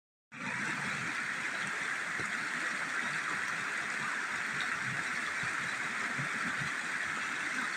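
Steady rush of a flowing stream, an even hiss of moving water with no change in level.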